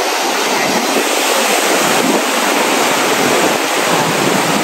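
Surf breaking on a sandy beach: a loud, steady wash of waves.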